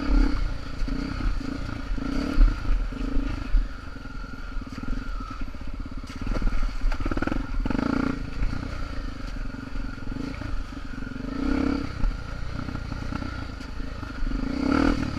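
Honda Tornado trail motorcycles' single-cylinder four-stroke engines running, revved up in short surges every few seconds.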